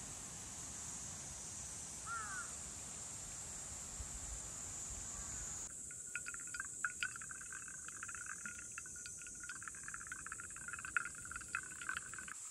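Brewed coffee dripping and trickling from a stainless mesh pour-over dripper into a glass server, heard as many small irregular plinks from about halfway in. Before that there is a steady high insect buzz, with a short bird chirp about two seconds in.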